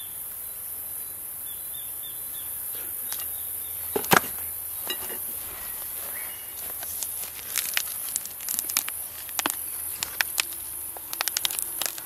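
A steady high-pitched insect chorus throughout, with scattered sharp clicks and knocks from about four seconds in, coming thicker near the end, as a wooden stingless bee hive box is handled and its lid opened.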